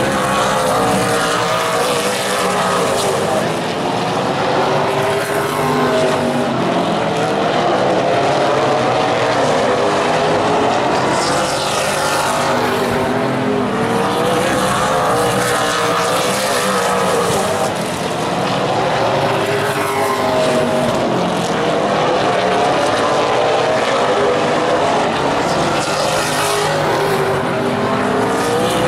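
A field of Super Late Model stock cars racing on a short oval, their V8 engines running hard together, the pitch rising and falling over and over every few seconds.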